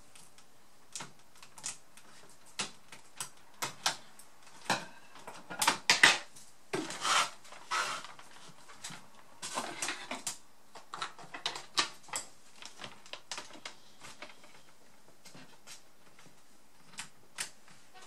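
Irregular clicks, taps and clatter of hands working in an open laptop's plastic chassis and handling small metal tools, louder and busier about six to eight seconds in.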